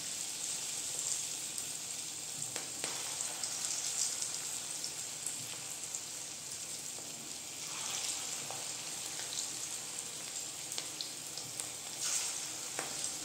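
Cabbage pakoras deep-frying in hot mustard oil in a kadai: a steady sizzle with small crackles, growing a little louder near the end as more pieces of batter are dropped into the oil.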